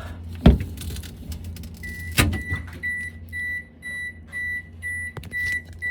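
New refrigerator's electronic alarm beeping, a high single-pitched beep repeating about twice a second, starting about two seconds in, over a low steady hum. A couple of knocks come before the beeping starts.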